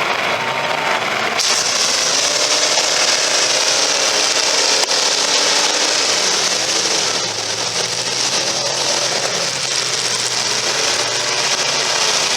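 Demolition derby cars' engines revving up and down, with a harsh grinding, scraping noise that comes in about a second and a half in and carries on.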